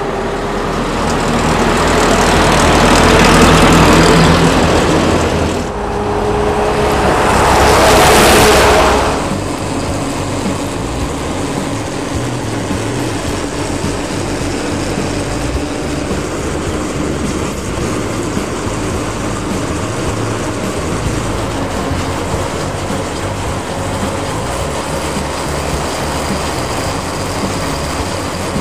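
1929 Mack AK chain-drive dump truck with its four-cylinder gasoline engine running, passing close by twice and loudest about 4 and 8 seconds in. After that comes a steady, even noise of the truck running at road speed, mixed with road and wind noise.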